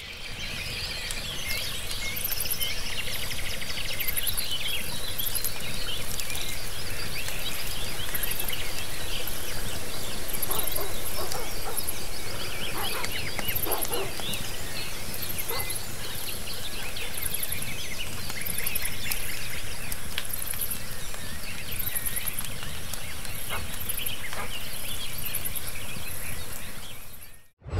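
Outdoor nature ambience: birds chirping and calling over a steady hiss of background noise, with a high, pulsing chirr that comes and goes throughout.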